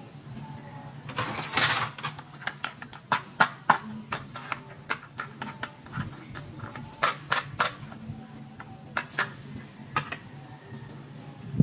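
Small plastic toy pieces and packaging being handled: irregular sharp clicks and taps throughout, with a short rustle about a second and a half in.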